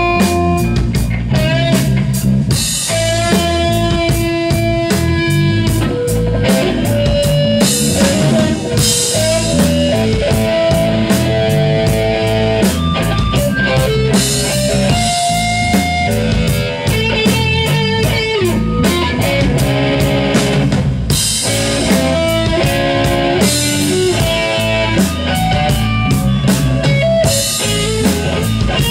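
Live psychedelic rock band playing: an electric bass line and a busy drum kit with frequent cymbal hits, under a melody of held notes that step from pitch to pitch.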